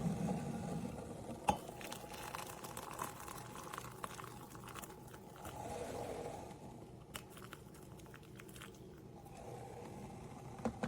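Faint handling noises: scattered light clicks and soft crinkling, over a low hum that fades away in the first second or so.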